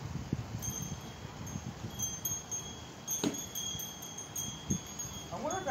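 Wind chimes ringing, a few clear high notes struck now and then and left to ring over a low background rumble. Two sharp clicks stand out, about three seconds in and near the end.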